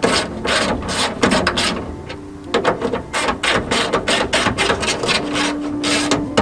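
Ratchet clicking rapidly in several runs with short pauses, driving in a fastener on the truck door.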